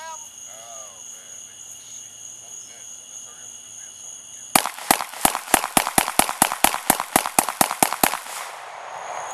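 Glock 19 9 mm pistol fired in rapid succession, about fifteen shots in three and a half seconds starting about four and a half seconds in, emptying its fifteen-round magazine. Crickets trill steadily behind it.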